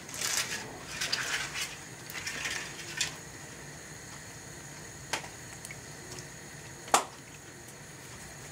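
Hands breaking thin Kinder chocolate egg shells, a crackling rustle for the first two or three seconds, then a few scattered sharp clicks, the loudest about seven seconds in.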